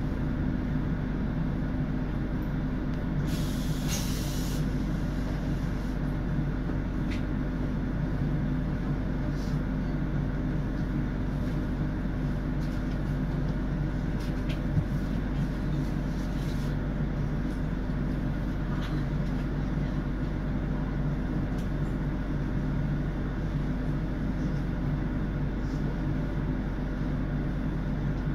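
Roslagsbanan ABB UBp electric train running steadily along the line: an even rumble with a steady low hum. A short hiss comes about three to four seconds in, along with a few faint clicks.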